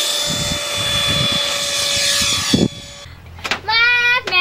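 Electric ducted-fan RC F/A-18 jet running: a steady high whine over rushing air for about three seconds, then it cuts off suddenly. A child's voice follows near the end.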